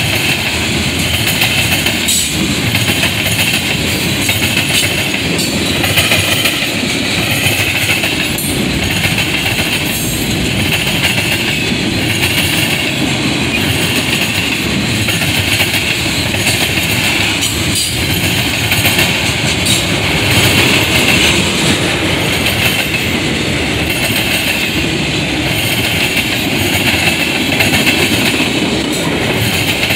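Freight train of covered hoppers, boxcars, tank cars and autoracks rolling past close by: a steady, loud rumble and rattle of steel wheels on the rails with no let-up.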